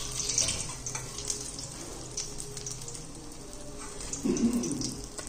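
Hot oil from deep-frying bhajias sizzling and crackling with a fine, irregular spatter, over a steady low hum.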